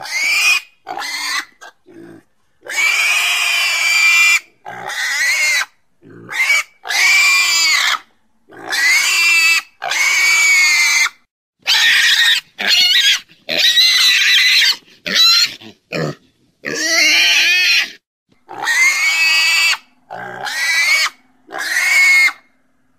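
Domestic pig squealing over and over: a long run of loud, high-pitched calls, each about half a second to a second and a half long, that rise and fall in pitch, with short silent gaps between them.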